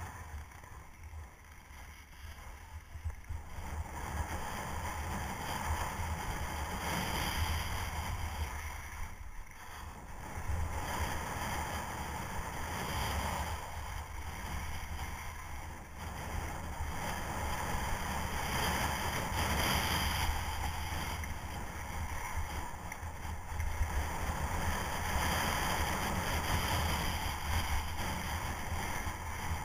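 Skis scraping and carving on hard-packed glacier snow, swelling and easing every few seconds with each turn, over steady wind buffeting the camera's microphone.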